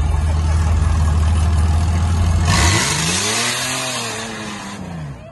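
Rock-crawler buggy's engine running at low revs as it climbs a rock ledge, then revved up and back down about three seconds in, with a loud rushing noise over the rev.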